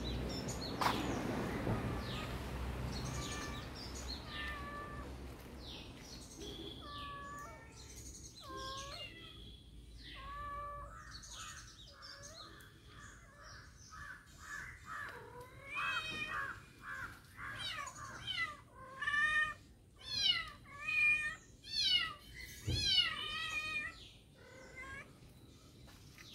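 Kitten mewing again and again in short, high-pitched cries, which come faster and louder in the second half.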